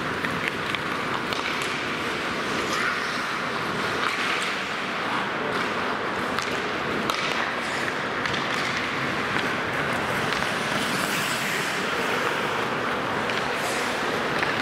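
Live sound of an ice hockey drill: a steady hiss of skate blades cutting the ice, with scattered sharp clicks of sticks and puck.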